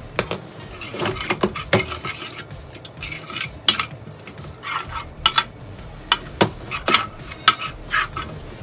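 Metal spoon tapping and scraping on a plastic tray while spreading grated ginger: an irregular string of sharp clicks and short scrapes.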